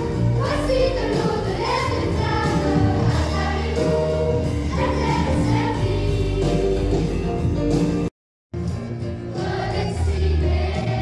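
Children's choir singing with instrumental accompaniment, sung melody lines moving over a steady bass. A little after eight seconds in, the sound drops out completely for a split second, then the music resumes.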